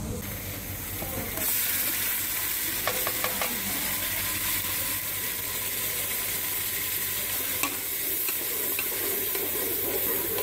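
Ground onion paste sizzling in hot oil in an aluminium pressure cooker, the hiss starting abruptly about a second and a half in. A steel ladle stirring the pot clinks against it a few times.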